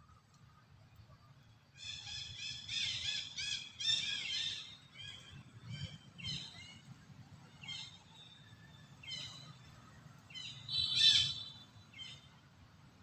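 A series of short, high chirping animal calls repeated in bouts, loudest about three to four seconds in and again near eleven seconds.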